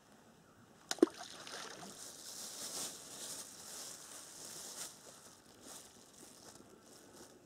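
A thrown ball of groundbait plops once into the still pond water about a second in. This is followed by a soft rustling of a plastic bag as more bait is handled.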